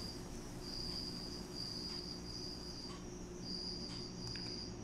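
A cricket trilling at one high pitch in stretches of about half a second to a second with short breaks between, over a faint low hum.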